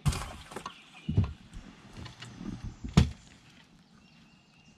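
A few sharp knocks and thumps in a small fishing boat as a just-caught bream is put away. The loudest knock comes about three seconds in, with lighter handling noises between them.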